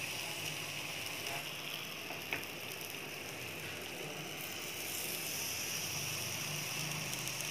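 Marinated paneer and vegetable skewers sizzling steadily on an oiled grill pan, with one light click a little over two seconds in.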